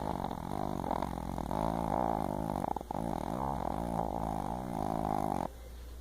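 Loud snoring whose pitch wavers up and down, with a short break about three seconds in. It cuts off abruptly near the end.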